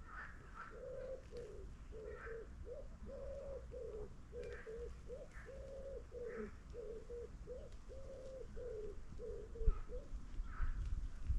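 A dove cooing: a long run of short, low, even coos that stops about nine seconds in, with smaller birds chirping higher up. A few low thumps near the end.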